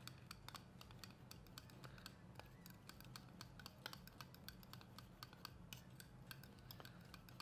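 Faint, quick, irregular clicking and scraping of a metal fork against a small glass bowl as it stirs a thick mayonnaise and tomato sauce mixture.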